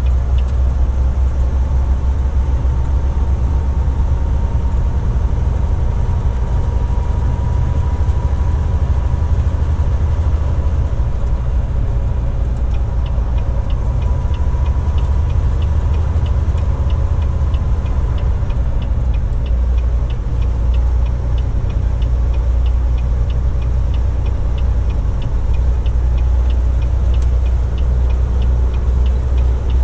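Volvo VNL860 semi truck's diesel engine and tyre noise heard inside the cab, a steady low drone while the truck gathers speed on the highway. A fast, light ticking joins about halfway through.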